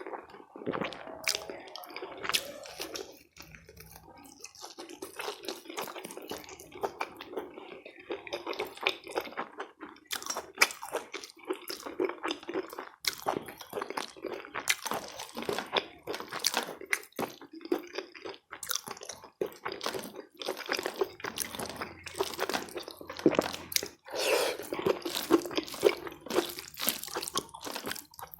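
Close-up eating sounds: chewing with wet smacks and crunches while eating rice with curry by hand, in dense irregular clicks.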